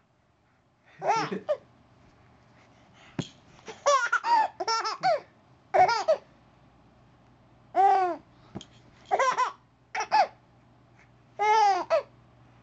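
Four-month-old baby laughing in short, high-pitched bursts, about eight of them, separated by quiet gaps of a second or so.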